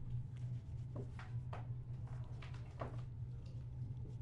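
Trading cards being handled and sorted by hand: a few short, soft flicks and slides of card stock about one to three seconds in, over a steady low hum.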